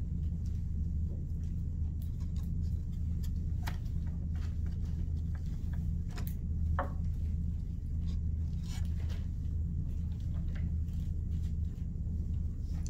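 A steady low hum, with faint scattered taps and rustles of a glue stick, paper and a wooden craft stick being handled.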